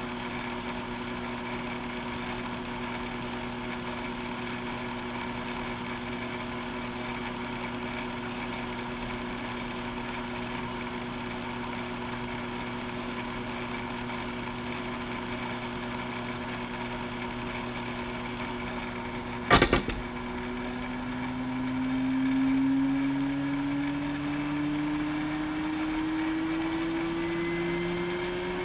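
Small electric blower motor on a repair bench, humming steadily. About two-thirds of the way through there is a sharp click, and then its pitch climbs slowly as the motor speeds up.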